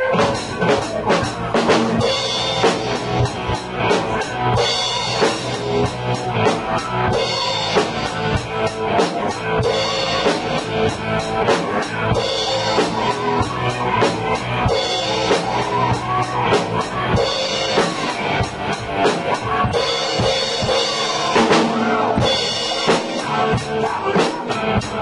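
Drum kit being played with sticks: a steady beat of bass drum and snare strikes, with a cymbal crash about every two and a half seconds.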